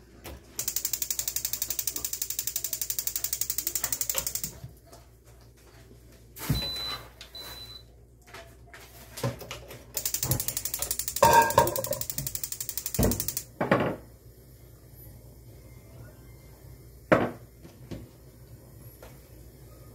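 Fast, even, ratchet-like clicking for about four seconds, then two short high electronic beeps like a cooktop's control panel. The clicking comes back for about three seconds with clattering mixed in, and a sharp knock follows near the end.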